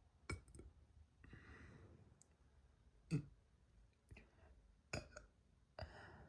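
A girl's quiet mouth and throat sounds: several sharp clicks, two breathy exhales, and a short low burp about three seconds in, the loudest sound.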